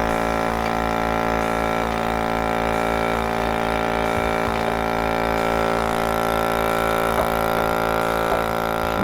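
Goat milking machine running steadily: its vacuum pump motor hums while the milking action gives a steady rhythmic pulse as a doe is milked out.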